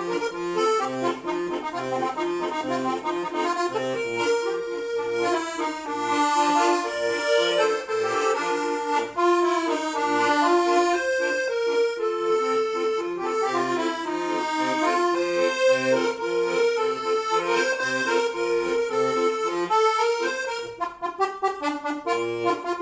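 Piano accordion playing a lively German folk tune: a right-hand melody over a steady oom-pah bass-and-chord beat from the left-hand buttons. Near the end the notes turn short and choppy.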